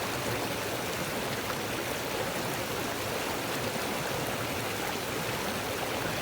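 Small snow-fed mountain stream rushing steadily over its bed.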